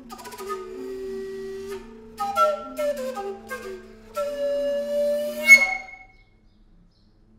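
Trio of recorders playing contemporary music: several held notes sound together, with short tongued attacks and a sharp loud accent. The playing breaks off about six seconds in.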